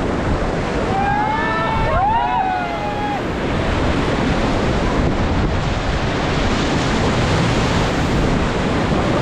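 Steady rush of river whitewater, with wind buffeting the microphone. A few voices shout briefly between about one and three seconds in.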